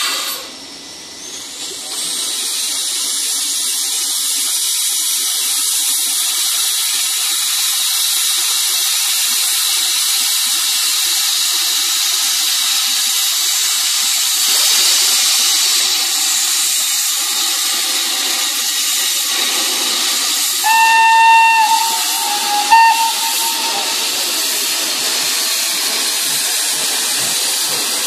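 Steam locomotive venting a steady, loud hiss of steam as it gets under way. About 21 seconds in it gives a short whistle blast, then a brief second toot. There is a sharp click right at the start.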